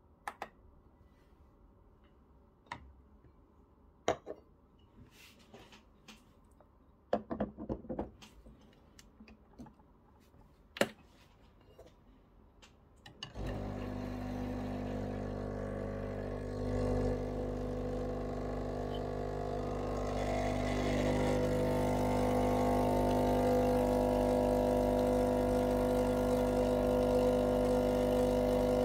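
Clinks and knocks of glass cups and the portafilter being set in place on a Breville Barista Pro espresso machine, then about halfway through the machine's vibratory pump starts with a steady hum as it pulls an espresso shot, growing louder some seconds later.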